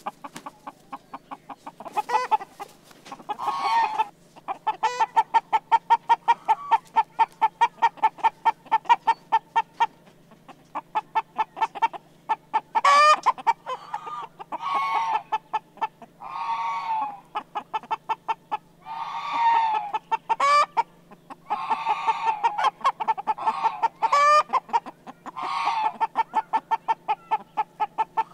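American Bresse chickens clucking in a fast, steady chatter, several short clucks a second, with longer, louder calls breaking in every second or two.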